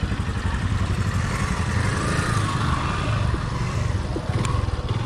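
Motorcycle engines running steadily at low speed as a line of bikes rides over a sandy dirt track, heard from on board one of them.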